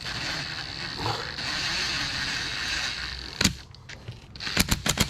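Cordless impact driver running for about three seconds, driving in a starter motor's mounting bolt, followed by several sharp clicks.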